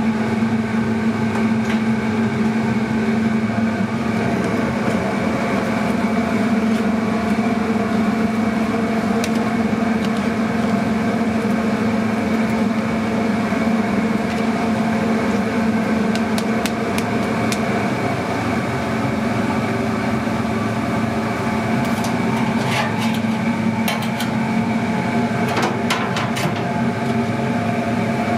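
Steady mechanical hum of commercial kitchen ventilation and equipment, holding several fixed tones. About three-quarters of the way through come a few light metal clinks of tongs against sheet-pan covers.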